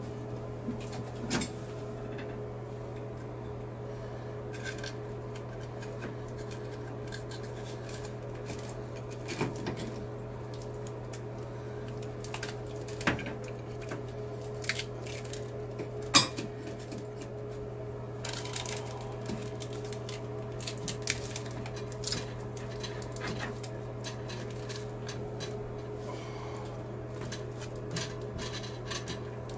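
Scattered small metallic clicks and taps as water supply line nuts are threaded and hand-tightened onto the chrome shutoff valves under a wall-hung sink, over a steady low hum.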